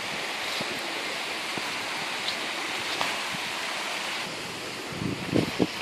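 A shallow stream rushing over its stony bed, a steady hiss of running water. Just after five seconds in, a few brief low thumps rise above it.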